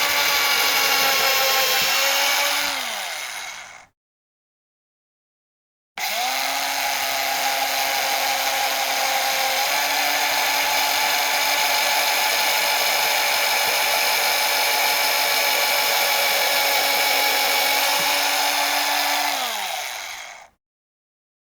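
Electric hammer drill motor running at a steady whine, then released about three seconds in so it spins down. About six seconds in it starts again abruptly, runs steadily for about thirteen seconds, and spins down near the end.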